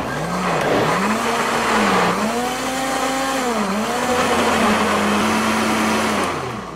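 Maharaja Whiteline Desire mixer grinder running, pureeing blanched spinach with paneer and water. The motor's pitch dips and recovers several times as the load shifts, then steadies and winds down to a stop near the end.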